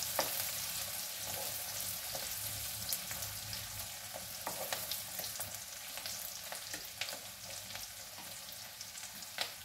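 Chopped onion frying in hot mustard oil in a steel kadhai, with a steady sizzle, as the onion softens towards transparent. A spatula stirs the pan, adding a few sharp clicks and scrapes against the metal.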